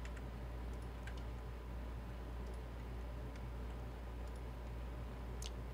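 A handful of faint, scattered computer keyboard keystrokes, the clearest near the end, over a steady low hum.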